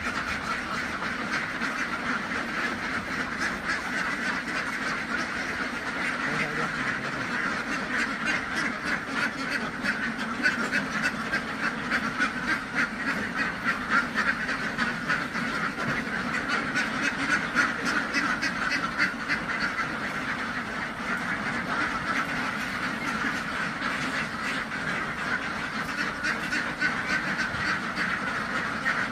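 A flock of ducks quacking continuously, many birds calling at once, a little louder in the middle.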